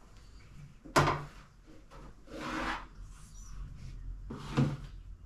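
Two sharp knocks about three and a half seconds apart, the first the loudest, with a rubbing swish between them.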